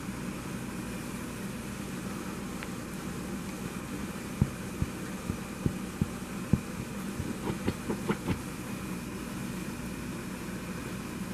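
Steady low background hum, broken a little before halfway by a run of about six soft thumps, then a quick cluster of clicks.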